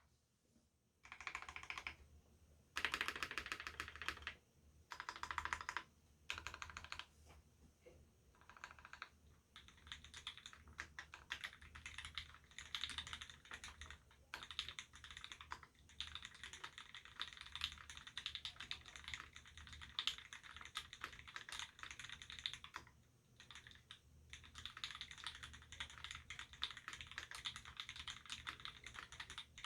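Typing on a Duck Octagon v3 mechanical keyboard with Gateron Ink Black linear switches lubed with Krytox 205g0, a stainless-steel plate and GMK Mizu keycaps. The keystrokes come in short dense bursts over the first several seconds, then as near-continuous typing with a few brief pauses.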